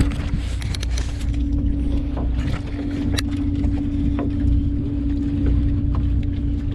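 Boat engine running with a steady low rumble and a constant hum, with scattered sharp clicks and knocks on top, the clearest about three seconds in.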